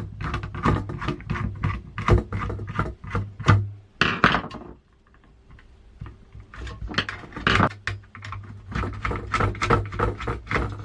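Hands handling computer hardware: a busy run of clicks, knocks and scrapes from PC parts being handled on a bench, pausing briefly about halfway through.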